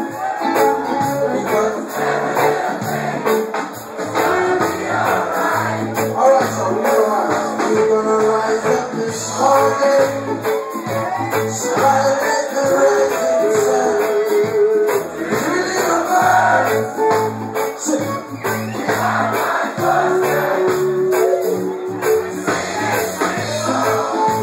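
Reggae band playing live, with a bass line repeating in short, even pulses under guitar and percussion.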